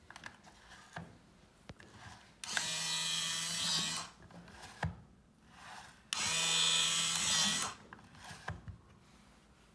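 Electric slim cigarette-tube filling machine's motor running twice, each run about a second and a half, driving the slide that pushes tobacco into the tube. A few light clicks come before, between and after the runs.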